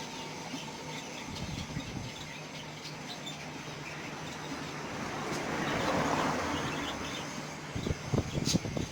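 Bird market ambience: many small caged birds chirping over a steady rumble of traffic. A swell of noise rises and fades about six seconds in, and a quick run of knocks comes near the end.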